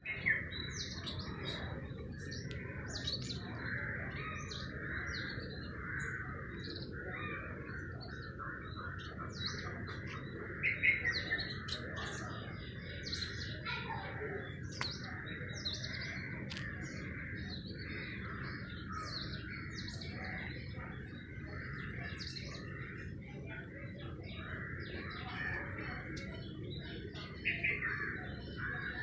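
A flock of small birds chirping and twittering without pause, a dense chatter with many short, sharp, higher chirps scattered through it, over a steady low background noise.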